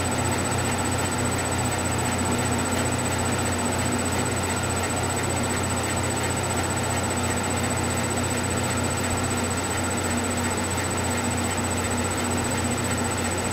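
Steady background hum and hiss with a constant high-pitched whine, unchanging throughout, with no other events.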